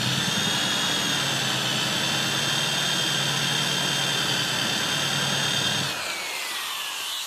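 Electric hand drill running a counterbore bit into a wooden slab, a steady high motor whine with the cutting noise of the bit in the wood. About six seconds in the trigger is released and the motor whine falls away as it spins down.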